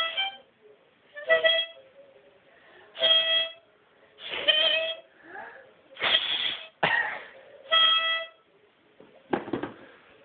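Harmonica blown by a small child: about eight short, separate chords with brief pauses between them, a few of them rough and noisy.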